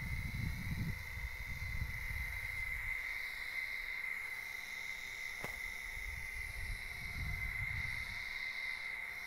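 A steady insect drone, one unbroken high tone, with low wind rumble on the microphone over the first few seconds.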